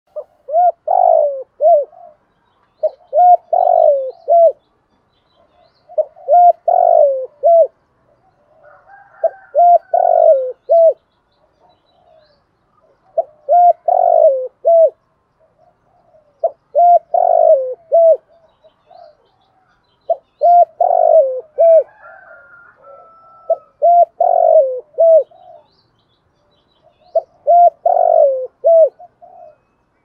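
Spotted dove cooing its call over and over, a phrase of several low, rounded coos roughly every three seconds, nine phrases in all. It is a decoy bird calling to draw in wild doves.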